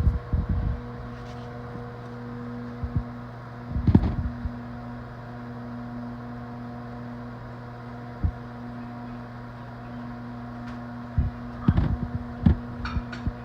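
Microwave oven running on its popcorn setting, a steady hum, with the kernels not yet popping. A few dull thumps come at the start, about four seconds in, and near the end.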